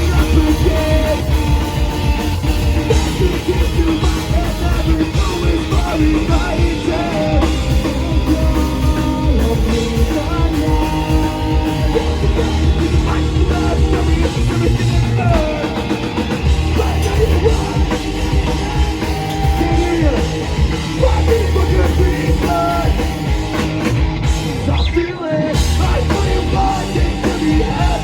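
Live rock band playing loudly, with a drum kit driving the song, and a brief stop about 25 seconds in before the band comes back in.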